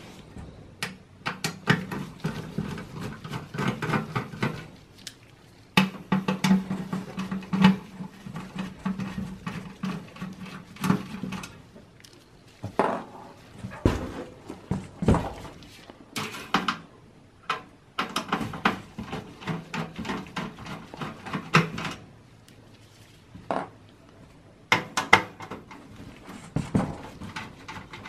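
Phillips screwdriver backing out motherboard screws inside a steel PC case: many irregular metal clicks, taps and scrapes, with stretches of a low buzz while the screws turn.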